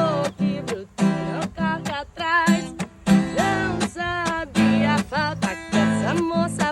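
Music: a sertanejo (Brazilian country) song, with strummed acoustic guitar under a bending, wavering melody line.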